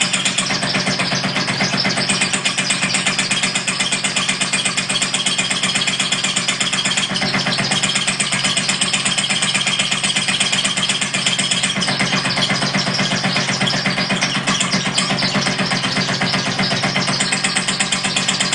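Small motor (the 'motograph') driving a hanging hen figure up and down on a rope, running steadily with a fast, even rattle.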